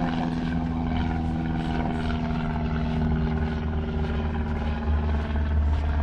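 A steady engine drone with a constant low hum, its low rumble swelling about five seconds in.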